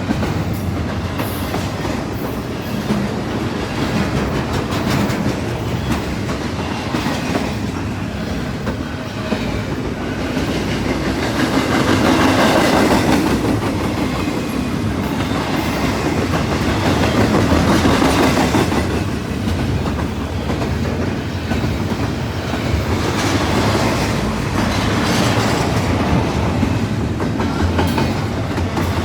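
Double-stack container cars of a long CSX freight train rolling past, their wheels running over the rail with a steady rumble and clatter. The sound swells louder twice around the middle.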